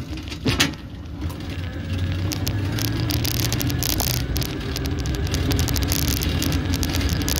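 Electric-assist bicycle with a SmartBikeWheel hub motor pulling away from a standstill in assist mode one and gathering speed. A low rolling noise builds over the first two seconds and then holds steady, with many small rattles and clicks throughout and a couple of knocks just after it sets off.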